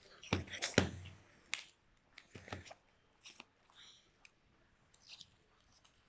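Paper packaging and a folded instruction leaflet being handled and unfolded: crinkling and rustling with scattered small clicks. A few heavier knocks of handling close to the microphone in the first second.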